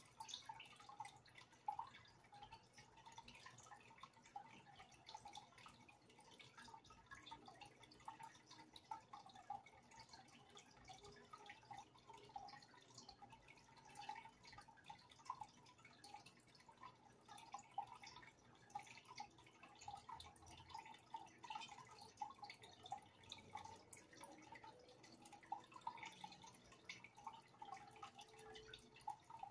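Faint aquarium water bubbling and dripping: a steady, irregular patter of small drips and bubbles.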